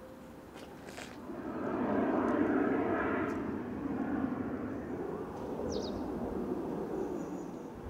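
Heavy diesel construction machinery running: a rushing engine noise that swells about a second and a half in, then holds steady a little quieter.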